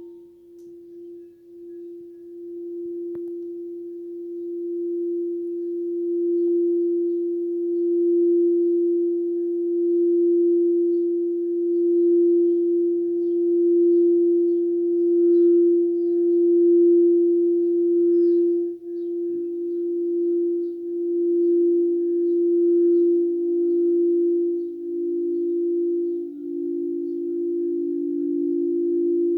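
Quartz crystal singing bowl playing one sustained tone that swells in and pulses slowly in loudness. About two-thirds of the way through, a second, lower-pitched bowl sounds and rings together with the first.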